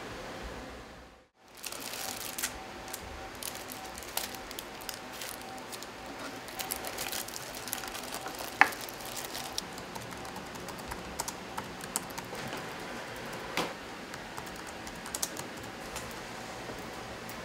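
Papers, file folders and plastic negative sleeves being handled: scattered light clicks, taps and rustles as files are leafed through in a wooden drawer and sleeves of negatives are lifted, over a faint steady hum.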